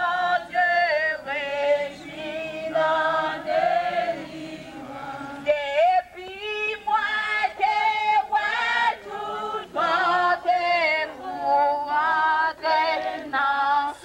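A group of walking people singing a hymn together without instruments, women's voices most prominent, on long held notes that step from one pitch to the next.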